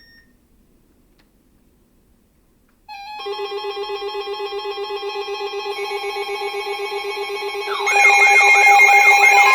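Electronic warning alarm: a pulsing tone starts about three seconds in, and near the end fast rising-and-falling siren-like warbles join it and it gets louder. It is an alert signal ahead of a broadcast tornado warning.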